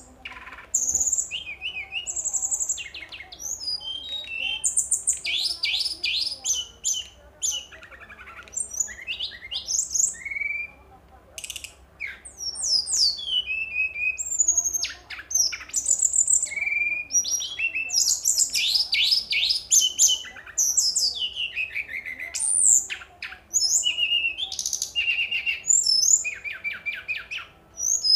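Brown-chested jungle flycatcher singing a long, varied song of quick high chirps, rapid trills and down-slurred whistles, broken by short pauses.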